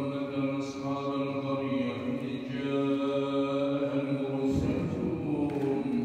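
A man chanting in long, held melodic phrases, in the style of Qur'an recitation (tilavet); his pitch steps up near the end.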